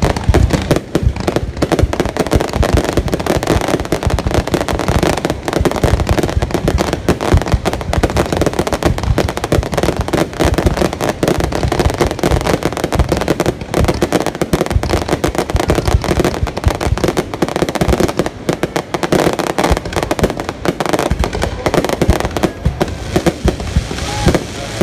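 Fireworks display going off continuously: a dense, unbroken barrage of bangs and crackling bursts, many a second.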